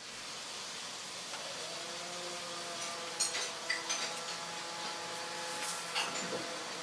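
Steady background hiss with a faint low hum, broken by a few faint clicks and taps about three seconds in and again near the end.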